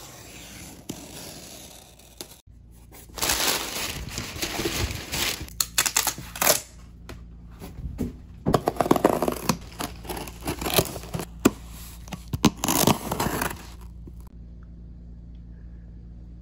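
A cardboard box being opened by hand: a box cutter slits the packing tape, then cardboard and packing tear, scrape and crinkle in irregular bursts with a few sharp knocks. The handling stops a couple of seconds before the end, leaving a faint room hum.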